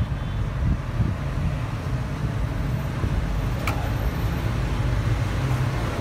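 Steady low background rumble, with one sharp click about three and a half seconds in.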